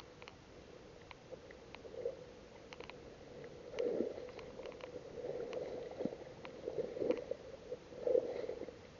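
Soft water gurgling and sloshing in irregular swells, with scattered small clicks.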